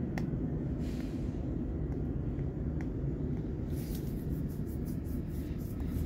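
Steady low rumble of diesel school bus engines running, heard from inside a vehicle, with a faint hiss joining higher up about four seconds in.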